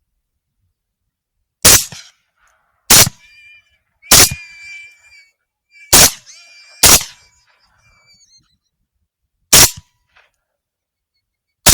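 Suppressed AR-10 rifle in 6.5 Creedmoor firing a string of about six shots at irregular intervals of one to three seconds, with a seventh right at the end.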